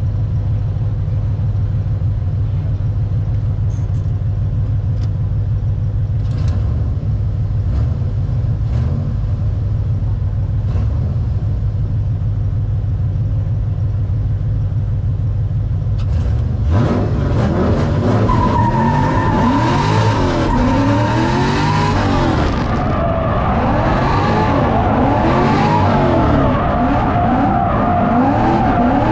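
Drift car engine running steadily at low revs, then about 17 seconds in it revs hard, its pitch rising and falling again and again as it drifts, with tyre squeal.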